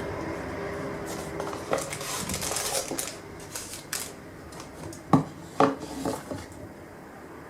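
Dishes and utensils being handled: a scatter of clinks and knocks, the loudest about five seconds in, over a steady hum that drops away about three seconds in.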